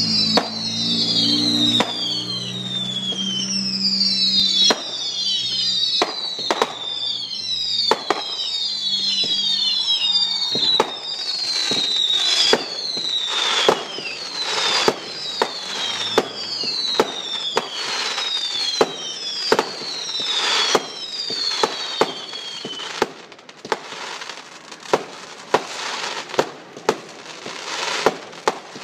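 Aerial fireworks going off: a string of whistling shots, each a high whistle falling in pitch, about one a second, mixed with sharp bangs. After about 23 s the whistles stop and a quicker run of sharp bangs and crackle follows, about two a second.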